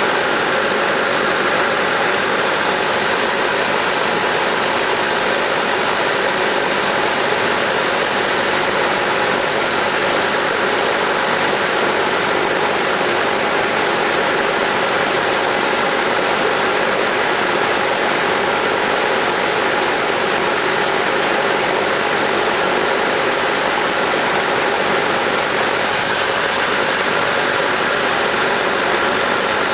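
Cessna 172's piston engine and propeller running steadily, heard as an even, unbroken rush of noise with no change in power.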